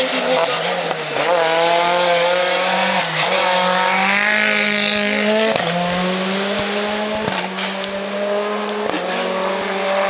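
Race car engine accelerating hard uphill, its pitch climbing and dropping sharply at each upshift, about every one and a half to two seconds.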